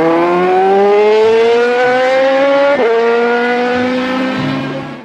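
Racing motorbike engine revving up, its pitch climbing steadily, then dropping with a gear change about three seconds in and holding before fading away near the end.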